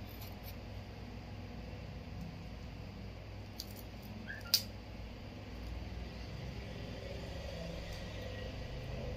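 Steady low room hum with a few faint ticks and one sharp click about four and a half seconds in: metal tweezers touching the parts and frame of a phone being reassembled.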